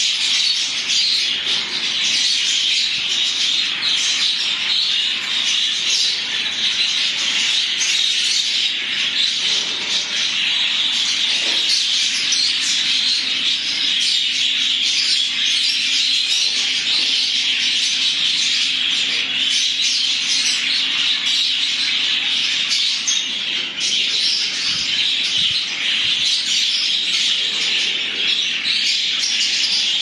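A large flock of budgerigars chattering at once: a dense, continuous high-pitched chirping and warbling that never lets up.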